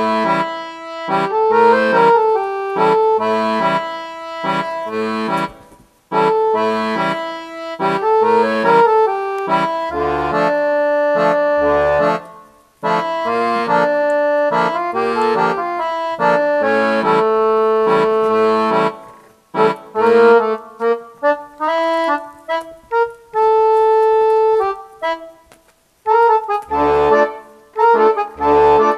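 Accordion music: a tune played over a regular bass-and-chord accompaniment, with short pauses between phrases.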